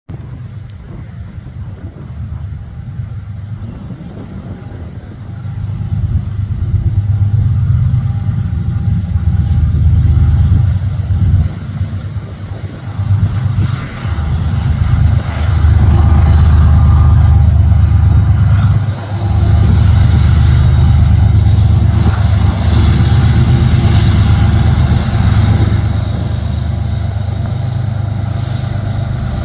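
CN freight train's diesel locomotives running under power, a deep steady engine rumble that grows much louder about six seconds in and stays loud, with brief dips, easing a little near the end.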